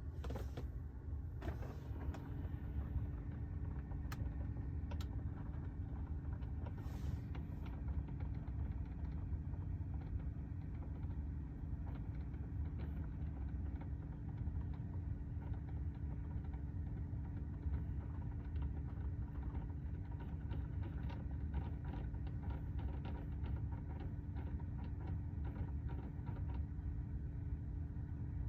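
HVAC system running: a steady low rumble with a constant hum, and a few sharp clicks in the first several seconds.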